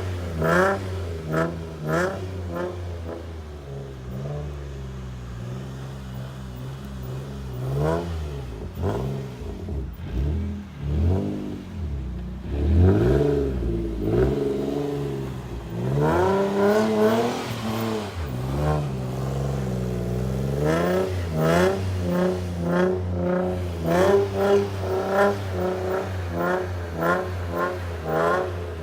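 Infiniti G35's VQ35DE V6 running loud through test pipes, a Bosal cat-back exhaust and a leaky Y-pipe, revving hard while the car slides in snow. Quick rev blips near the start and many more through the last third, with a steadier drone early on and longer climbs in pitch in the middle.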